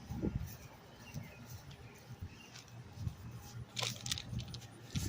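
Light jingling and scattered clicks over soft, irregular low thumps, as of someone walking while carrying keys or a bag, with one louder rustle near the end.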